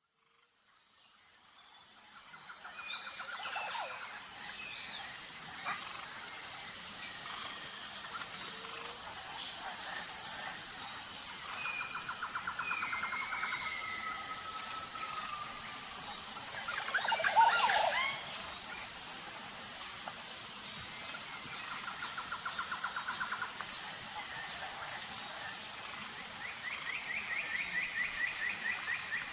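Forest ambience: birds calling and trilling over a steady background hiss and a steady high buzz with an even pulse. It fades in over the first few seconds, and a louder burst of calls comes about 17 seconds in.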